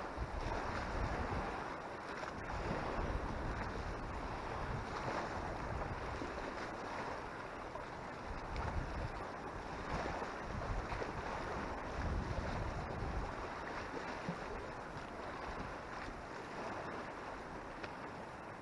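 Strong wind buffeting the microphone in gusts, with rumbling surges every few seconds, over the steady wash of choppy lake water.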